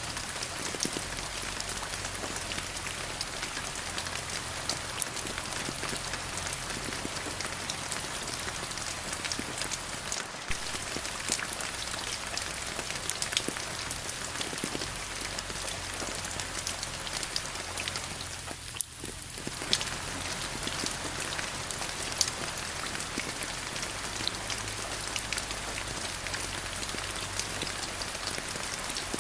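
Steady rain falling, a continuous hiss dense with the ticks of individual drops striking close by. The sound dips briefly about two-thirds of the way through, then carries on as before.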